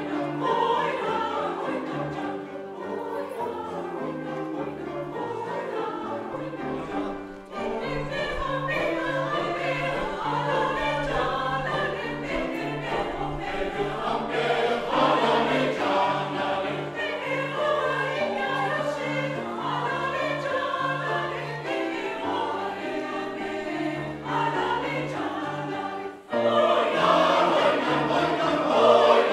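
Mixed choir of men's and women's voices singing with piano accompaniment. After a brief dip near the end it comes in louder.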